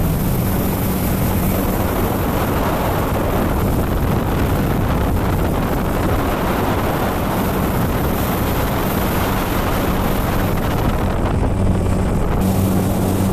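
Speedboat under way at speed: the outboard motor's steady hum runs under a loud rush of spray and water along the hull, with wind buffeting the microphone. The motor's hum stands out most at the start and again near the end.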